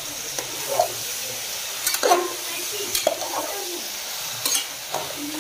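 Metal spatula scraping and stirring marinated chicken pieces in an aluminium pot, with several short scrapes over a steady sizzle as the chicken begins to fry.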